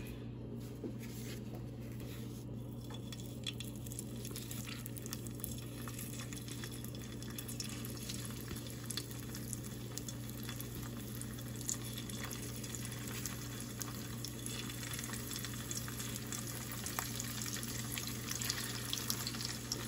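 Pork breakfast sausage links sizzling in hot bacon grease in a frying pan, a steady crackle of many small pops as more links are laid in.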